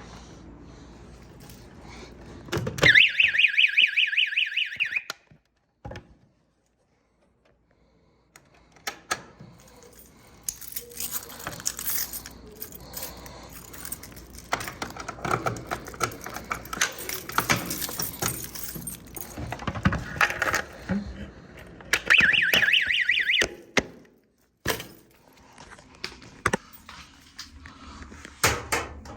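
Fire alarm horn on a Simplex 4020 addressable system sounding in two short blasts of a harsh, rapidly pulsing tone. The first comes about three seconds in and lasts about two seconds; the second comes about 22 seconds in and lasts a second and a half. Between the blasts there is rustling and knocking.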